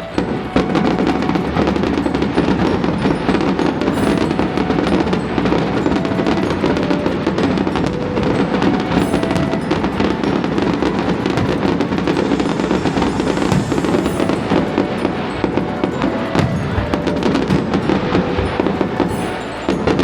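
A rapid barrage of fireworks bursting in quick succession, a dense run of booms and crackles that sets in about half a second in. Music plays underneath.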